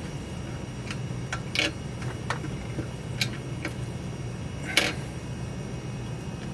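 Scattered clicks and knocks of a metal drill-press vise being shifted and repositioned on the drill press table, about seven in all, the loudest a knock just under five seconds in.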